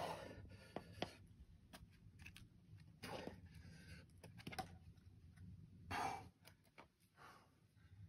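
A boulderer breathing out hard three times, about three seconds apart, as he makes moves on the rock, with a few faint sharp taps of hands or shoes on stone between them.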